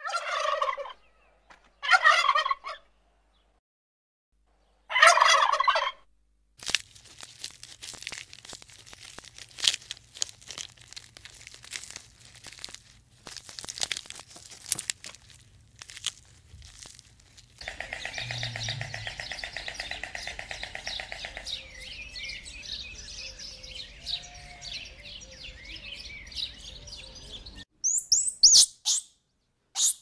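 Male domestic turkeys gobbling, three loud calls in the first six seconds. Then come scattered quiet ticks and rustles and a steady buzzing hum. Near the end there is a quick run of high, sliding chirps from squirrel monkeys.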